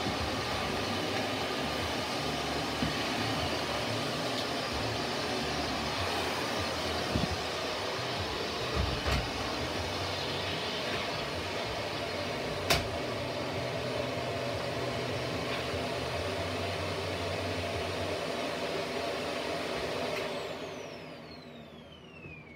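Shark Navigator Lift-Away Professional upright vacuum running steadily, with a few sharp knocks as the nozzle bumps around. About 20 seconds in it is switched off and the motor whine falls away as it spins down.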